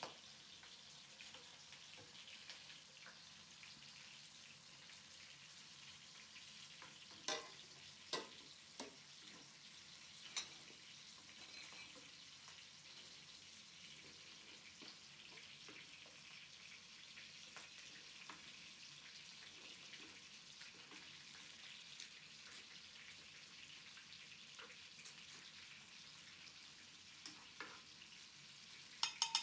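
Oil sizzling steadily in a frying pan as food fries, with a few sharp clicks of a utensil against the pan.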